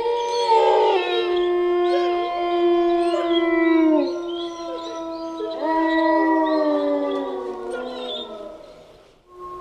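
Wolves howling: several long, drawn-out howls overlapping, some sliding down in pitch at their ends. The howls fade out near the end, and a new howl begins just before it.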